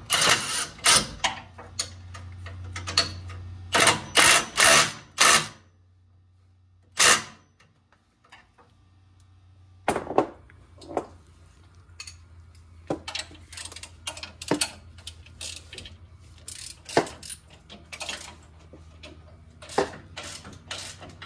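Hand tools clanking and a ratchet wrench clicking on the truck's suspension bolts, in scattered clusters with a short lull partway through and a low steady hum behind.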